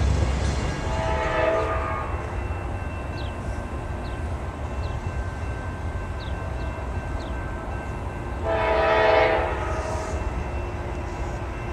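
Diesel locomotive air horn on an approaching train, sounding two blasts about seven seconds apart, the second louder, over a low rumble.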